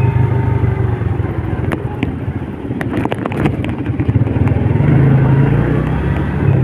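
Motor vehicle engine running steadily in road traffic, with a few sharp clicks or knocks about two to three seconds in.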